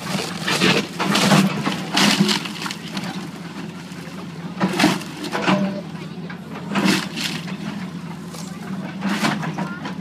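John Deere excavator engine running steadily while its bucket and thumb tear into a wooden building, with repeated crashes of breaking wood and falling debris, about seven in all.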